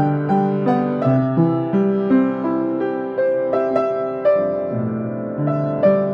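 Piano playing a slow melody with chords, each note struck and left to ring, a new note about every half second.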